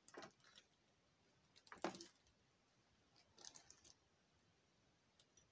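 Near silence with faint handling sounds of fingers and tying thread at a fly-tying vise: three brief soft rustles, the middle one the loudest.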